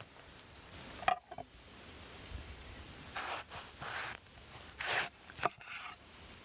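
Knife and fork working on a plate: a sharp click about a second in, then a few short scraping strokes with more clicks.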